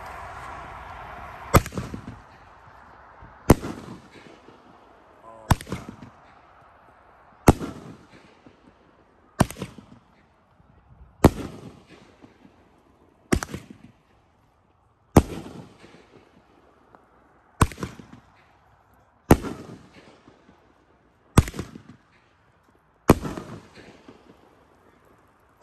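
Consumer fireworks cake firing aerial shots one after another: a sharp bang roughly every two seconds, about thirteen in all, each trailing off in a short rumble and echo.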